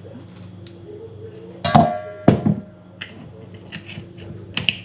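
Dishes and kitchenware clattering: a loud knock that rings on like metal, a second hard knock, then lighter clinks, over a steady low hum.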